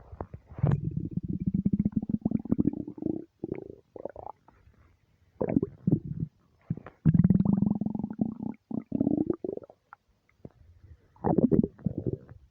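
An empty human stomach rumbling: a series of deep, long rumbles with a rapid fluttering texture. The longest last about three seconds, with short quiet gaps between them.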